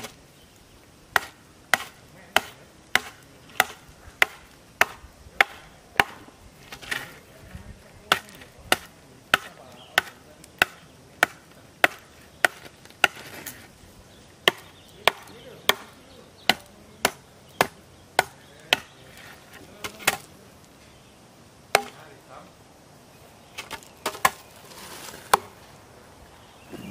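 Hatchet chopping a thin wooden branch: a steady run of sharp chops, a little under two a second, with a brief pause near the end before a few more, less regular strikes.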